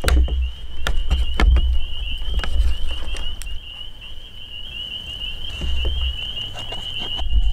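A knife and utensils knock and scrape against a plate a few times while steak is cut and sandwiches are put together, with dull low rumbles now and then. A steady high-pitched trilling from frogs runs throughout.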